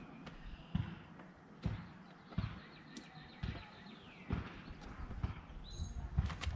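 Irregular dull thumps and light taps, about one a second, with a sharp click or two: handling knocks from hands working against a surface.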